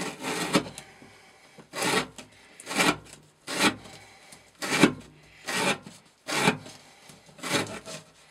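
A Glock FM 78 knife blade slicing through rope on a wooden block, about eight separate cuts roughly a second apart.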